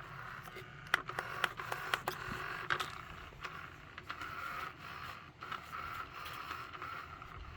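Small electric motor of an old motorized floor cat toy running in random mode: a thin whine that swells and fades as the speed changes, with scattered clicks and scrapes from the spinning wand and its toy sweeping the floor.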